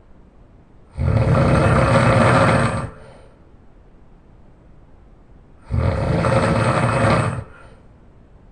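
A person snoring very loudly: two long, rough, rattling snores about five seconds apart, each lasting nearly two seconds.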